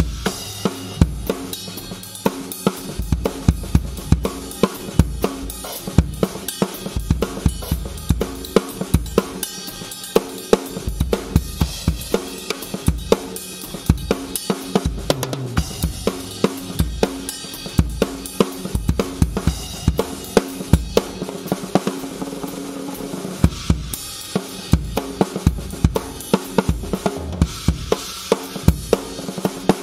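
A Yamaha acoustic drum kit with Sabian HHX cymbals played in a steady groove, with regular bass drum, snare and cymbal strokes throughout. It is picked up through a Yamaha EAD10 mic/trigger on its Compressor scene, which evens out the dynamics for a more consistent, powerful drum sound.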